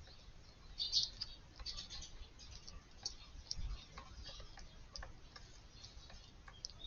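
Eurasian tree sparrows feeding: brief high chirps and scattered sharp ticks throughout, with the loudest cluster of chirps about a second in.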